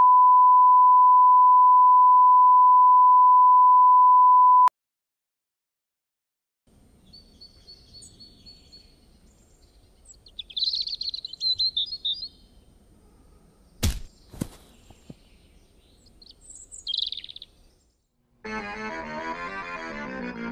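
A steady, loud reference-tone beep at about 1,000 Hz for roughly five seconds, cutting off abruptly. After a short silence come faint outdoor ambience with high bird chirps and a sharp knock about fourteen seconds in, then music starting near the end.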